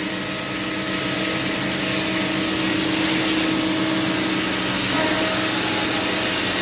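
Cylindrical grinding machine running, its wheel spinning under a flow of splashing coolant: a steady motor hum with a hiss over it.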